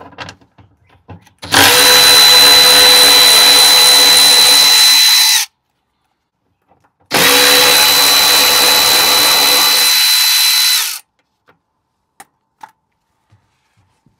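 Red cordless power tool running twice, about four seconds each with a steady whine and a short pause between, spinning out two bolts that hold a plastic underbody cover on a Lexus LX 570.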